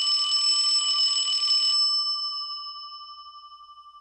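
A bell ringing with a rapid trill for about two seconds, then stopping and ringing out as it slowly fades.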